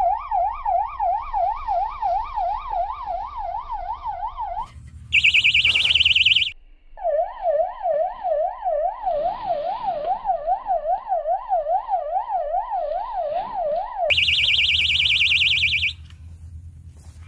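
Electronic fish bite alarm on a rod sounding a siren-like tone that warbles up and down several times a second. It is twice broken by a short, louder, higher-pitched warble, and it stops near the end. It signals a fish taking the bait.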